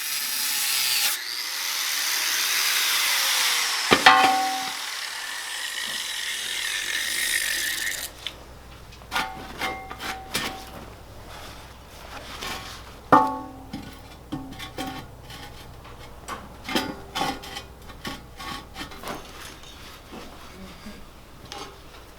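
Angle grinder cutting through the steel wall of an old tank for about eight seconds, with a ringing metal clang about four seconds in. After that come scattered clinks and knocks of steel being handled.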